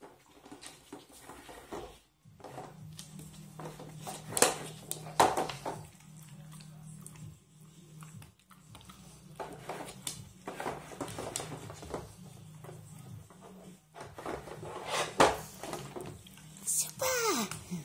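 A dog nosing and pawing at the lids of a treat puzzle board, the lids and boxes clattering and knocking against the board, with a few sharp knocks standing out. Near the end comes a short squeal that slides down in pitch.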